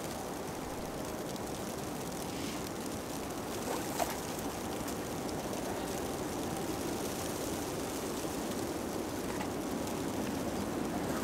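Wind buffeting the microphone, a steady rushing rumble, with a single click about four seconds in.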